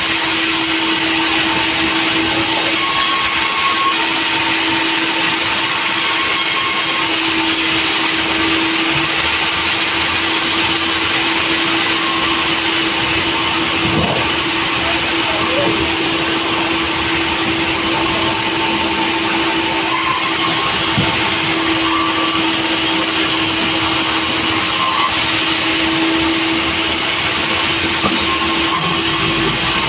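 Sawmill running: a loud, steady machine drone with a constant hum.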